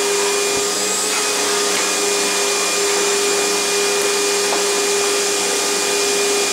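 Riccar 100 10-amp bagged upright vacuum cleaner running steadily: a constant motor tone over an even rush of air.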